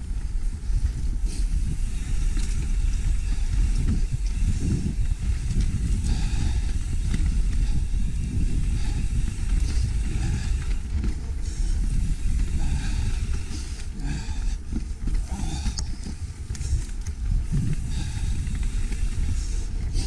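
Mountain bike riding down a dirt singletrack: a steady rumble of knobby tyres rolling over dirt and roots, with irregular rattles from the bike and wind buffeting the camera microphone.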